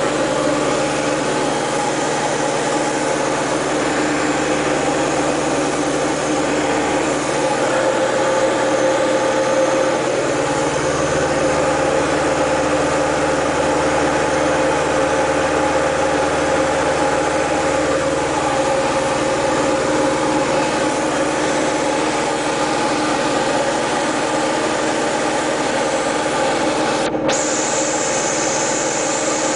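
Diamond DA-20 Eclipse's four-cylinder Continental engine and propeller in cruise, a steady loud drone heard inside the cockpit, its low hum shifting slightly in pitch a couple of times.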